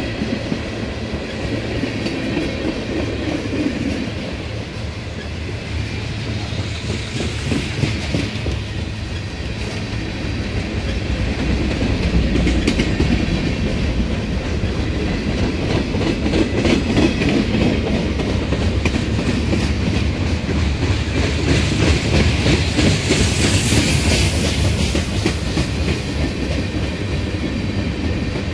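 Mixed freight train cars rolling past close by: a steady rumble of steel wheels on rail with the clickety-clack of wheels over rail joints. The train grows louder about twelve seconds in.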